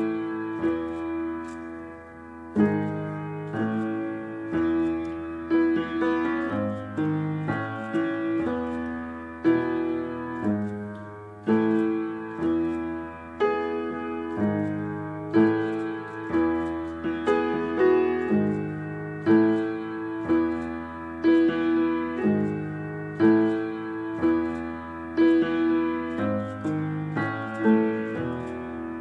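Background piano music: gently struck chords that ring and fade, changing about every one to two seconds over low bass notes.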